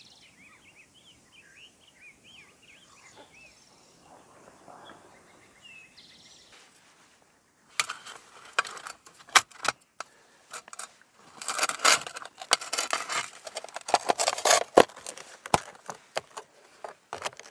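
Small birds chirping over quiet outdoor ambience for the first several seconds. Then, from about eight seconds in, the loudest sound: thin metal plates of a folding Firebox stove clinking and rattling in irregular clicks and clatters as they are handled and packed into their case.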